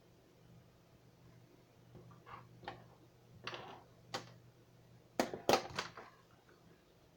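A few scattered short clicks and knocks, the loudest cluster about five to six seconds in, over a faint steady low hum.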